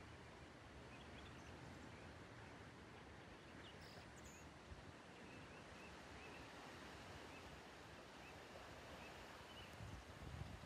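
Faint, steady outdoor hiss with a few faint, short bird chirps scattered through it. Wind bumps the microphone near the end.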